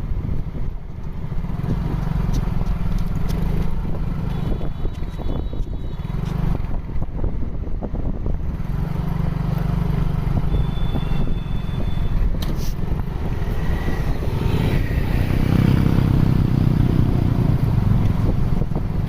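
Large bus engine running with a steady low rumble, growing louder from about 14 seconds in as it comes closer.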